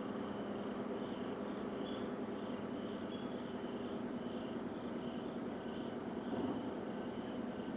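A steady low droning rumble coming from the sky, of unidentified origin, with insects chirping about twice a second over it.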